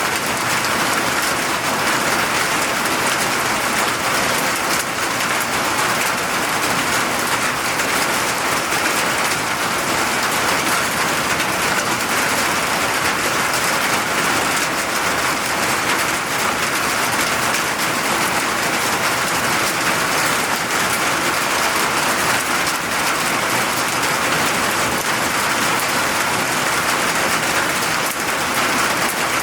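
Steady rain, a dense, even hiss of drops falling on surfaces with no pauses.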